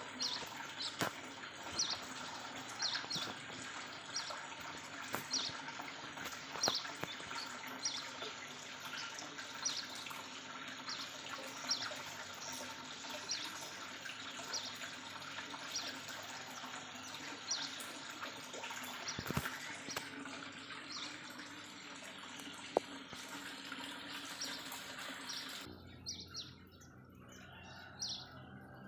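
Small aviary birds chirping, with short, high calls repeating about once a second, over a steady rushing hiss that cuts off near the end.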